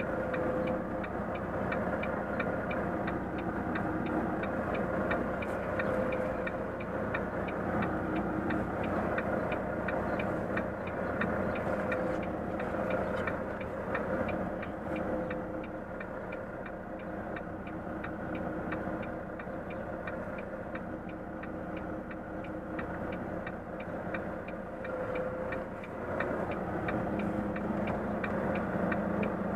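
A Volvo FM truck's diesel engine running at low speed, heard from inside the cab, with the turn-signal indicator ticking at an even pace throughout.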